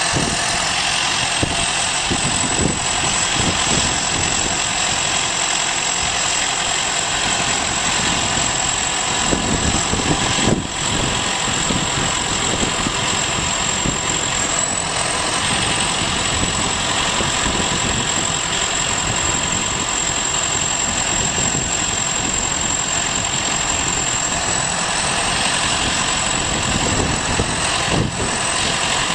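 Farm machine's diesel engine running steadily, with a constant high-pitched whine over it and a brief knock about ten seconds in.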